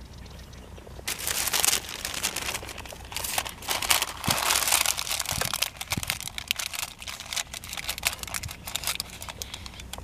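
Sheet of baking paper crinkling and rustling as it is pressed and folded into a cast-iron mini Dutch oven as a liner, starting about a second in.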